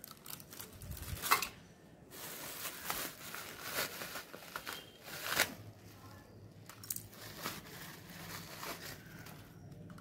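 Clear plastic wrapping crinkling and rustling as hands handle tin toy boats, with scattered small clicks and taps, the sharpest about a second in and past the middle.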